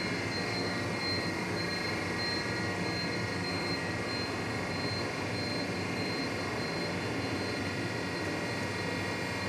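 Steady drone of rubber-moulding factory machinery, with a constant high whine above it.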